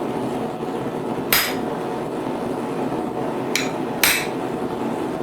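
Blacksmith's hammer striking hot steel bar on the anvil: three sharp ringing blows, the last two half a second apart, over a steady hum.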